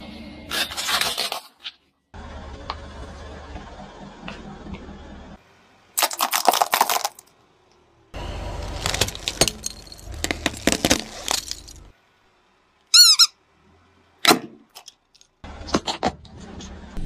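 Car tyre rolling over and crushing small plastic objects, in short separate clips: sharp cracking and crunching bursts with a low rumble from the car between them. A brief high, wavering squeak comes late on, and a sharp pop follows it.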